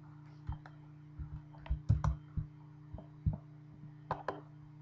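Irregular clicks and taps on a laptop, about a dozen in under five seconds, over a steady low electrical hum.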